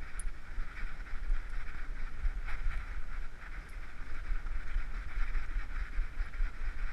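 Handling noise from a GoPro HERO3 strapped to a walking dog's head: a steady low rumble with irregular rustling and scuffing as the camera shifts with each step.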